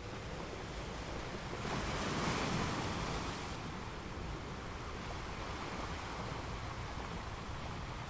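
Steady rushing of water that swells louder about two seconds in, then eases back.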